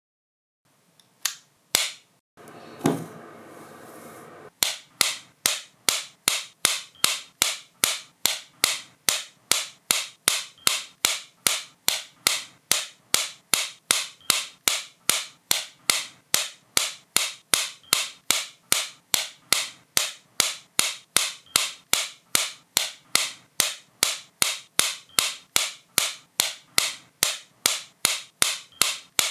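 Sharp clicks repeated at an even pace, about two and a half a second, starting about five seconds in. Before them come two single clicks and a short stretch of hiss with a dull thud.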